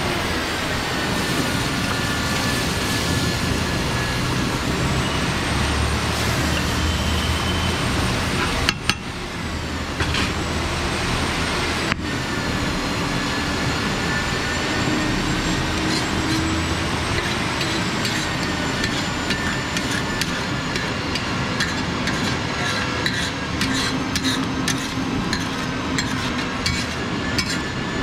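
Egg mixture cooking on a large flat iron griddle, a steel spatula scraping and tapping against the iron over a steady noisy background. Near the end comes a run of quick scrapes and clicks as the food is scraped off the griddle.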